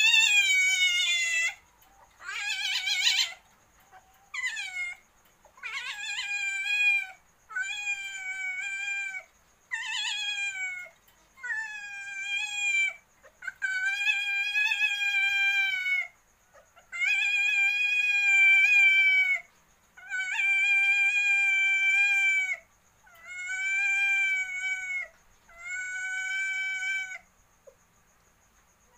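Asian palm civet giving a long series of high, drawn-out calls, about a dozen, each one to two and a half seconds long with short pauses between, most dropping slightly in pitch at the end. The animal is caged with a mate for breeding.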